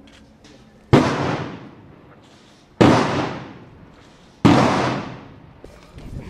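Three loud gunshot blasts of a ceremonial salute, about two seconds apart, each echoing away over about a second.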